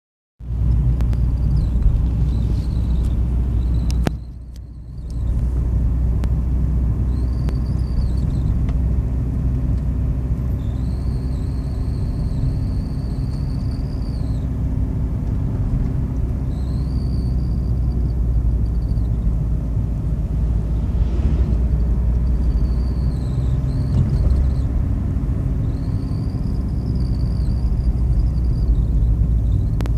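Inside an Audi A3 8L, a steady low car rumble with a high-pitched squeal from the dashboard that comes and goes many times, each lasting from under a second to about three seconds. This squeal is the strange dashboard noise the car is making.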